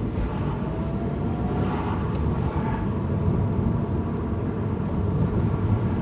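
Steady engine and road noise inside a moving car's cabin, with a faint rising whine near the start.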